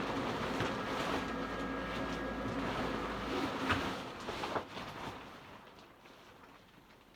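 Electric blower fan of a large Christmas inflatable running with a steady hum, then cut off a little over three seconds in and winding down, with a couple of knocks as it stops.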